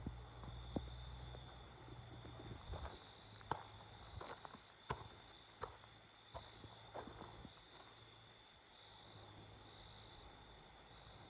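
Night ambience of insects chirring, one steady high thin tone and a quick, evenly pulsing chirp, with scattered sharp clicks and cracks at irregular intervals.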